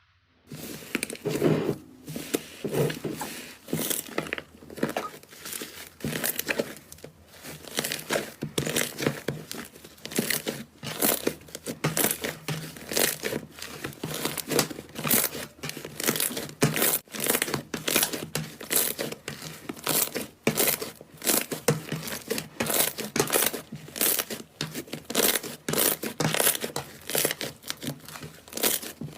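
Crunchy slime squeezed and worked by hand close to the microphone: dense, irregular crackling and popping with many small snaps.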